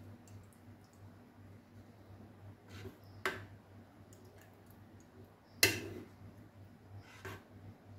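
A few light clicks and taps of a utensil against a glass bowl while melted ghee is poured into milk, the loudest about three and five and a half seconds in, over a low steady hum.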